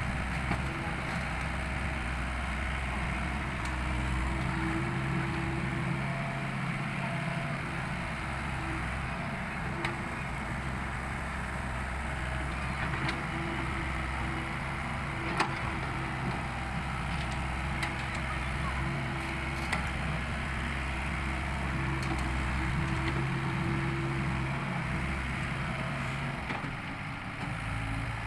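Small excavator's diesel engine running steadily while digging and loading, its note strengthening and easing as the hydraulic load comes and goes, with a few sharp knocks, the loudest about halfway through.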